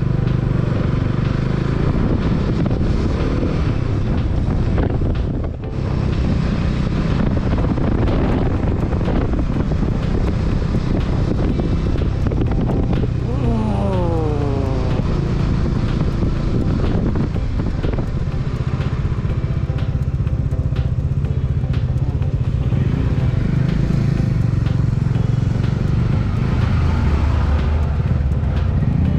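Bajaj Dominar 400 motorcycle's single-cylinder engine running on the road, with wind noise over it. About halfway through, the engine note falls away as the bike slows, and near the end it rises again.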